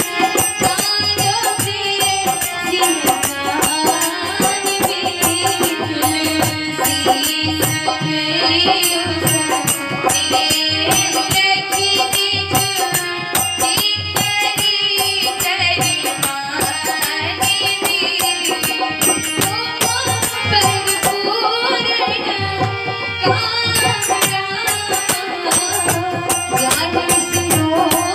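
Devotional bhajan music: a harmonium holding sustained tones under a melody, a hand-held jingling percussion instrument shaken in a steady rhythm, and a woman's voice singing along.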